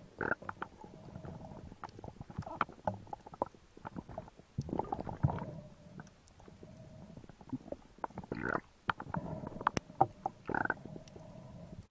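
Muffled underwater sound through a camera housing: a low rumble of water movement with scattered clicks and knocks and a few louder swishes.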